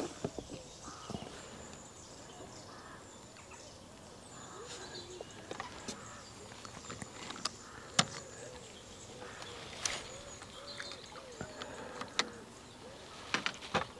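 Quiet waterside ambience with a bird's soft, low hooting calls repeating every half second or so from about four seconds in, and scattered sharp clicks from fishing tackle being handled, the loudest about eight seconds in.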